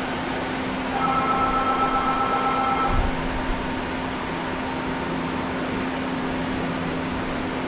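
Steady room tone of a workshop: a low machine hum with an even airy hiss. From about a second in, a faint whine of a few steady tones runs for about two seconds and ends in a low thump.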